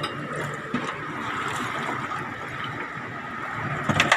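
Steady hum of boat machinery with water sloshing around the hull, and a few sharp knocks near the end.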